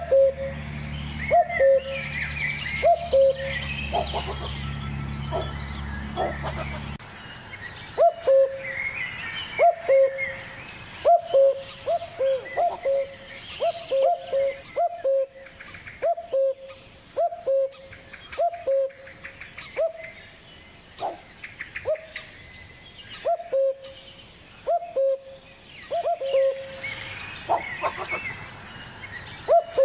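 Birds calling: one short low call repeated about once a second, with higher chirping and twittering over it. A low hum underneath stops about seven seconds in.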